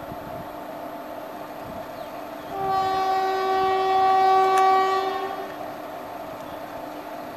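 WAP-4 electric locomotive's horn sounding one long, steady blast for nearly three seconds, starting about two and a half seconds in, over the approaching train's steady hum.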